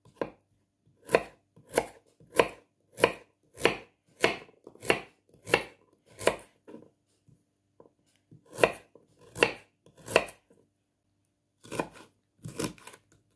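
Kitchen knife slicing a raw carrot into rounds on a wooden cutting board: each stroke ends in a sharp knock of the blade on the board, at a steady pace of about one and a half cuts a second, with two short pauses. Near the end a quicker cluster of cuts goes through a red bell pepper.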